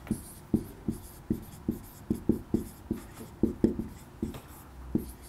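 Marker pen writing on a whiteboard: a quick run of short strokes, about three a second, as a line of words is written.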